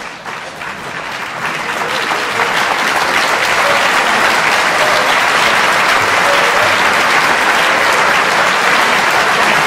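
Audience applauding, swelling over the first two or three seconds and then holding steady and loud.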